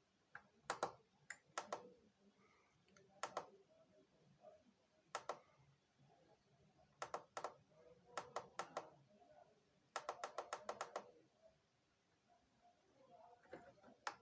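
Clicks of plastic remote-control buttons being pressed, single presses at first and then a quick run of about eight around ten seconds in, while the TV itself stays silent.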